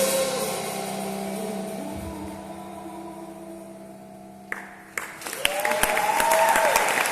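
A final held chord on piano and keyboards rings and slowly fades, then stops abruptly. About five seconds in, audience applause breaks out with a cheer.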